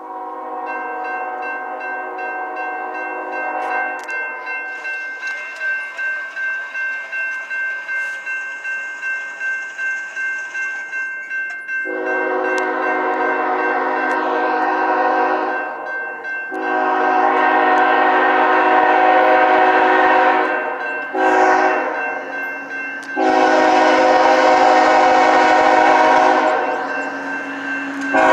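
A Union Pacific GE ES44AC locomotive sounds its horn on approach to a grade crossing: two long blasts, a short one and a final long one, the standard crossing signal, after an earlier blast in the first few seconds. Under it the crossing's warning bell rings steadily at about two strokes a second, heard on its own between the blasts.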